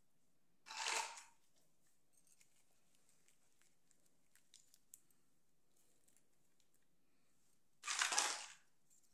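Two short rustling swishes, like plastic being handled, about a second in and again near the end, with a few faint light ticks in between.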